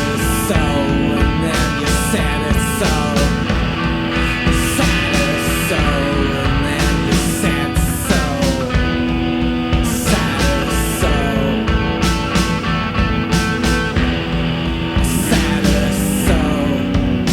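Indie rock song played by a full band, steady and loud, with regular sharp strikes cutting through the sustained chords.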